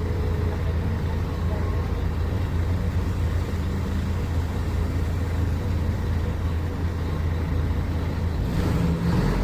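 Diesel engine of a Mercedes-Benz O500UA superarticulated BRT bus running steadily with a low, even drone. Near the end there is a brief hiss.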